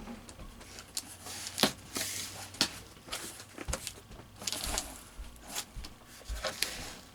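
Cardboard box being handled and worked open by hand: scattered sharp taps and knocks with stretches of scraping and rustling.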